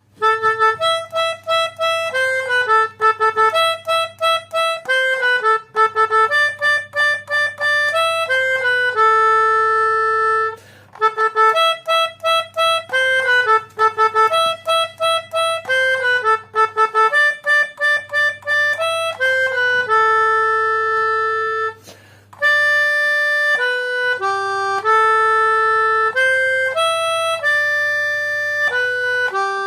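Melodica (pianika) playing a telolet bus-horn style melody, with quick runs of notes and longer held notes, over a low steady drone that comes and goes. The playing breaks off briefly twice.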